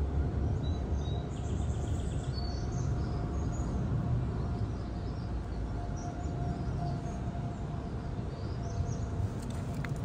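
Outdoor ambience: a steady low rumble with small birds chirping now and then.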